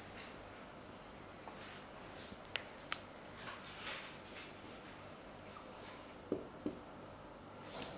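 Marker pen writing on a whiteboard: faint scratchy strokes of the tip across the board, with a few short sharp taps.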